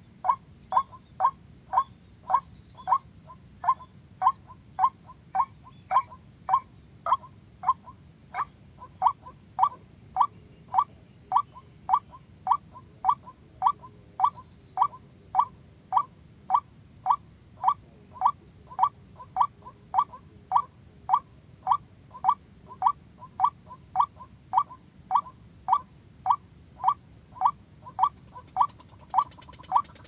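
White-breasted waterhen call: a short, sharp note repeated steadily and evenly, nearly two a second, without a break.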